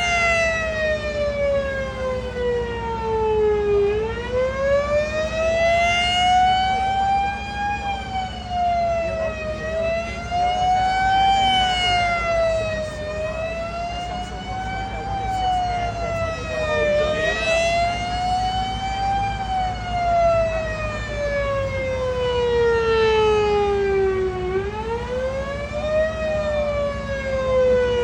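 Small electromechanical siren wailing. Its pitch slides slowly down, climbs back up, and wavers up and down in shorter swings through the middle, then sinks low again and rises near the end. A steady low hum runs underneath.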